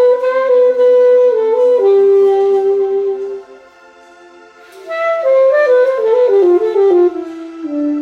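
Alto saxophone played live: a melodic phrase that settles on a long held note, a pause of about a second, then a second phrase of notes stepping downward.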